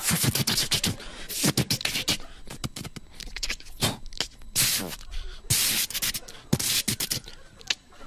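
Vocal sound effects made with the mouth into a microphone for a hairdresser scene: a run of sharp clicks and short hissing bursts with brief pauses between them.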